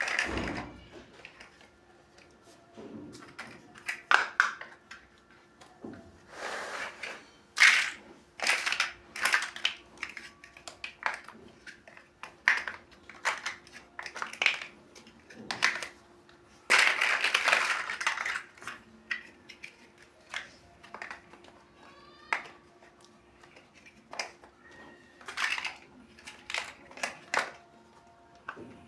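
Plastic building bricks clicking and clattering as they are handled and pressed together, in irregular short clicks, with a couple of longer rattling stretches as bricks are shuffled.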